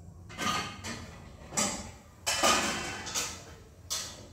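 Cookware and utensils being handled at a kitchen stove: about six short scraping, clattering noises, the loudest near the middle.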